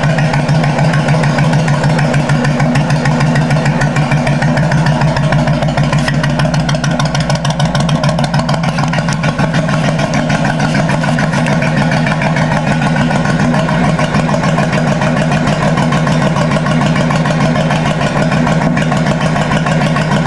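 Suzuki Intruder LC 1500's V-twin engine idling steadily through a custom-made dual exhaust, with a deep note.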